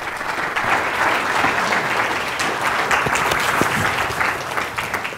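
Audience applauding: many people clapping at once, the sound fading near the end.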